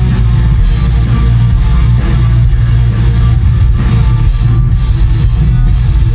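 Black metal band playing live, loud and continuous, with electric guitars and bass guitar, heard from the audience.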